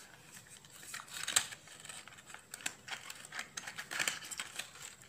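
Clear plastic packaging tray crinkling and clicking as a fitness band is pried out of it, with scattered small crackles and one sharper click about a second and a half in.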